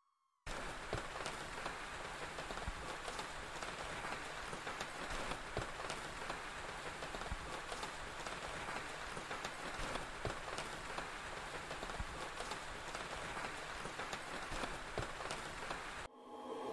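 Steady rain falling on a surface: an even hiss full of fine drop ticks. It starts abruptly about half a second in and cuts off suddenly near the end.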